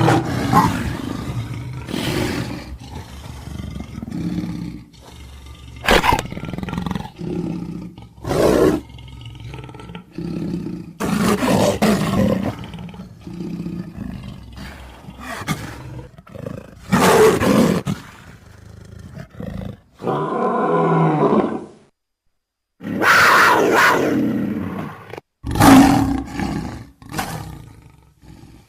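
A string of big-cat roars, snarls and growls, one call after another with short pauses between, broken by a brief silence about two-thirds of the way through.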